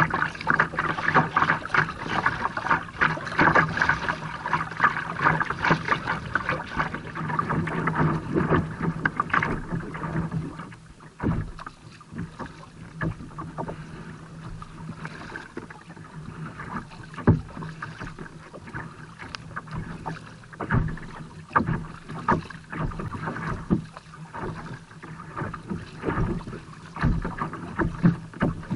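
Water slapping and splashing against a kayak's hull in choppy water as it is paddled, with wind on the microphone. It is busy and dense for the first ten seconds or so, then quieter, with scattered knocks.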